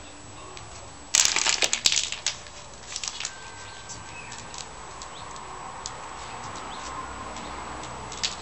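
Empty capped plastic water bottle being wrung tight by hand, its thin plastic crackling loudly for about a second and then a few smaller crackles and clicks as the air inside is compressed. A single sharp crack comes at the very end.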